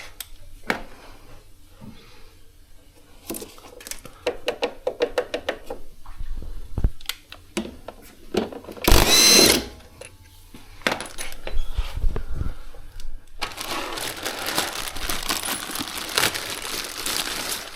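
Metal parts and tools being handled at a washing machine under repair: scattered clicks and clinks, a brief loud scrape about nine seconds in, and a dense run of rapid rattling and rustling over the last four seconds.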